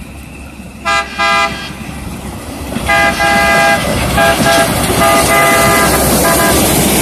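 Air horn on a rail maintenance vehicle: two short toots, then a long, long, short, long sequence of blasts, the grade-crossing signal, over the rising rumble of rail equipment approaching on the track.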